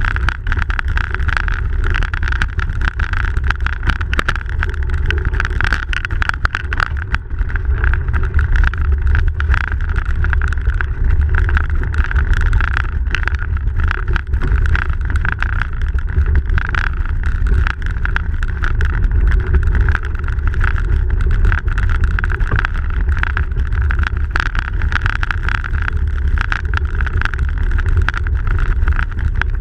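Steady riding noise of a bicycle on packed snow heard through a bike-mounted camera: a heavy low rumble of wind and tyre noise, with frequent small clicks and rattles.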